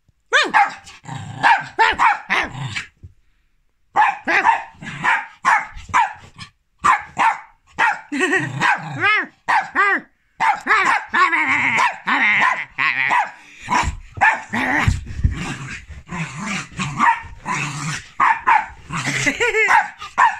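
Jack Russell terrier barking excitedly in rapid bouts of short, sharp barks after a burst of zoomies, with brief pauses between the runs.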